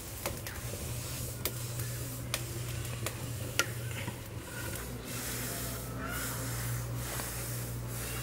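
Wood fire crackling under a clay pot of water on a mud stove, with scattered sharp clicks over a steady low hum and a hiss of steam that grows in the second half. About three and a half seconds in, a single sharp knock as a steel plate is set into the clay pot's mouth.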